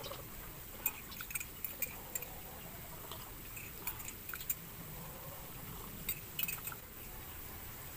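A metal spoon clinking against a ceramic mug in short, light taps that come in a few scattered clusters.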